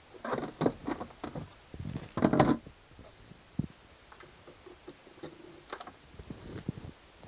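A white molded plastic cover, with a flexible ribbed hose attached, being handled and lifted out of a compartment: scattered knocks, scrapes and rustles of plastic, loudest in a cluster about two seconds in.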